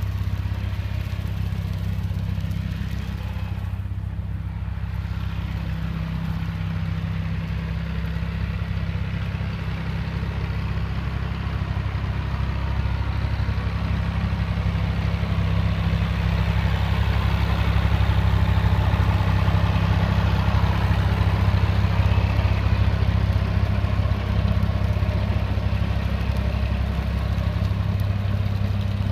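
Tractor engine running steadily, growing somewhat louder from about halfway through.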